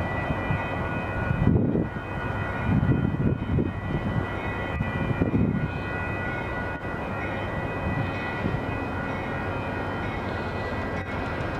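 Amtrak GE Genesis diesel locomotive running as it rolls slowly past: a steady engine rumble with a steady high whine over it. Louder low rumbles swell about 1.5, 3 and 5 seconds in.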